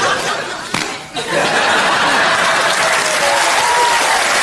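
Backing music ends about a second in, followed by a studio audience clapping and applauding steadily.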